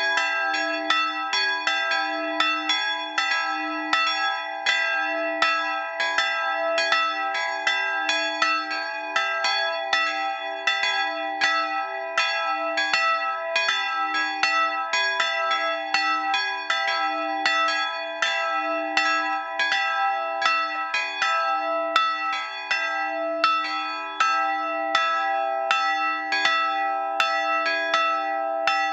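Two bronze church bells cast in 1913 by Schilling & Söhne of Apolda, tuned to e'' and g-sharp'', swinging and ringing together. Their clapper strokes fall two to three a second in an uneven, overlapping rhythm over a continuous ringing hum.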